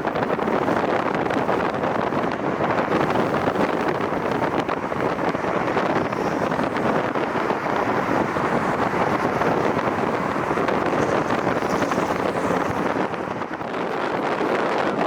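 Strong gusty wind blowing across the microphone, a loud steady rushing noise.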